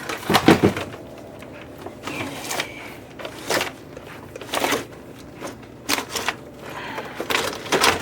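Hard objects being handled and moved about: a string of irregular knocks, clicks and rattles, the loudest about half a second in.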